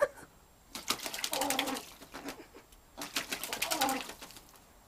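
An American crow bathing and giving two low, coo-like rattling calls, each about a second long, at about one and three seconds in, with water splashing in the tub.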